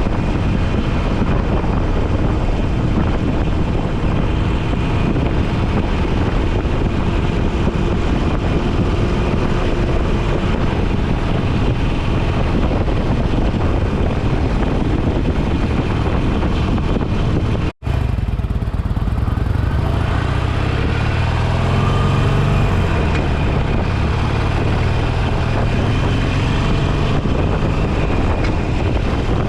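Motorcycle engine running under wind rush on the microphone. About 18 seconds in there is a sudden brief dropout, after which the engine's low rumble is stronger and a faint rising and falling note comes through.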